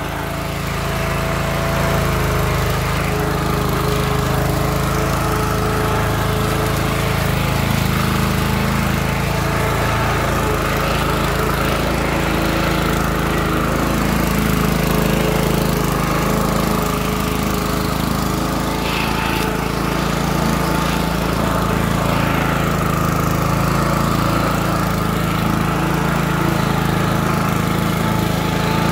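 Petrol walk-behind lawn mower engine running steadily just after starting, coming up to speed in the first second or two and then holding an even hum.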